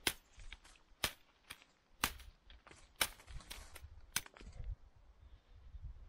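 Herb stems being cut off a bouquet with a blade: five sharp snips about a second apart, with a few fainter clicks between them.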